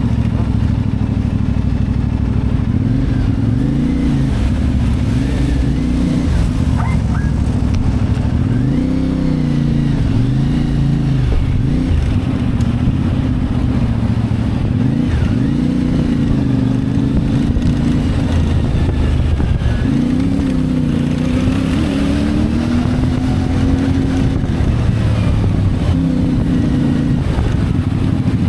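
CFMoto 450MT's parallel-twin engine running on the move, its pitch rising and falling again and again as the rider opens and closes the throttle and changes gear.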